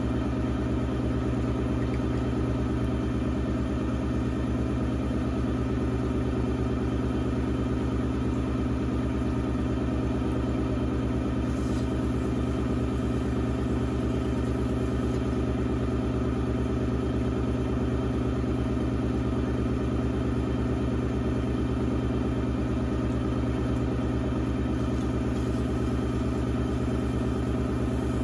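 Electric potter's wheel motor running at a steady speed, a constant even hum.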